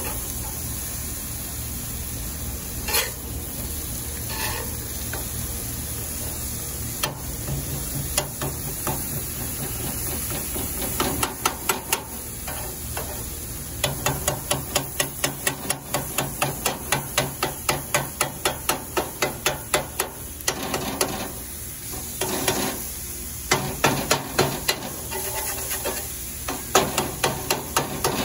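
Thin-sliced beef sizzling on a cast iron griddle while a flat steel spatula scrapes and chops the meat against the iron. From about ten seconds in there is a rapid run of metal taps, about three a second, that stops and starts again near the end.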